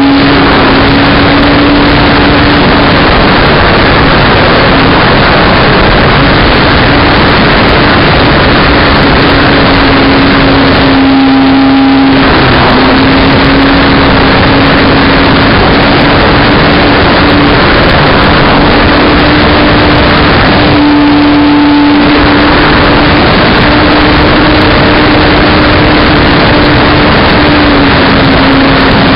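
Model aircraft's motor and propeller droning steadily, heard from a camera on board, under heavy wind rush on the microphone. The wind noise eases briefly twice, leaving the motor tone clearer.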